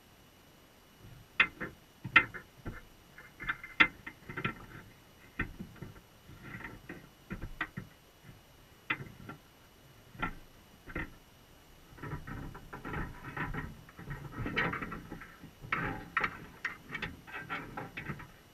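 Dungeness crab's legs clicking and scraping on the crab trap's wire mesh underwater: irregular sharp taps starting about a second in, growing into denser runs of clicks and scrapes near the end.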